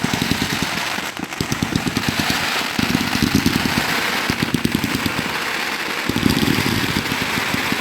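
A string of firecrackers going off in a long, rapid, continuous run of pops.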